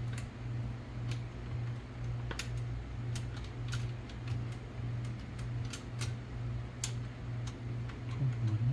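Scattered, irregular light clicks of a manual typewriter's mechanism being worked by hand during repair, over a steady low hum.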